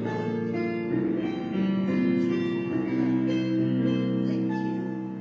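Background instrumental music with sustained notes and guitar-like plucked tones, without singing.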